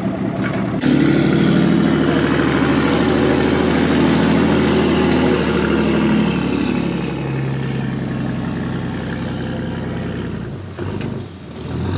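Bass boat outboard motor running under way, its engine note over a rush of wind and water. It gets suddenly louder just under a second in, eases off in the later part, and drops away briefly near the end.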